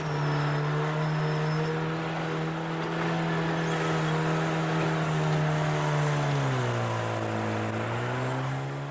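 Backhoe diesel engine running steadily, its pitch dipping about two-thirds of the way through and then coming back up. A thin high whine joins it about a third of the way in.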